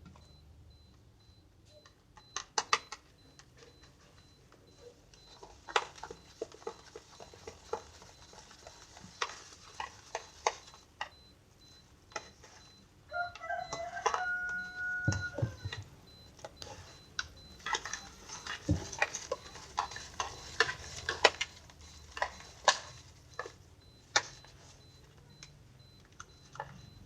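White slime being squeezed and poked, giving irregular sticky clicks and pops, thickest in the second half. A short squeaky tone that steps in pitch sounds about halfway through.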